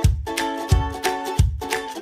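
Background music: plucked strings, ukulele or guitar, over a steady kick-drum beat.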